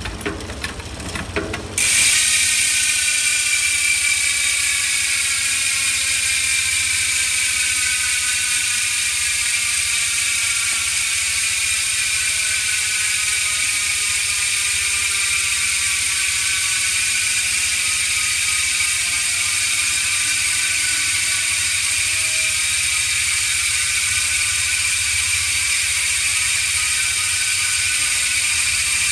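Traction Factorie six-pawl rear freehub freewheeling at high speed, its pawls clicking over the ratchet ring so fast they blur into a loud continuous buzz. After a few clicks it starts suddenly about two seconds in and slowly falls in pitch as the wheel coasts down.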